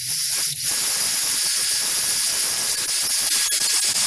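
A loud, steady hiss like rushing air, with a thin high whine running through it.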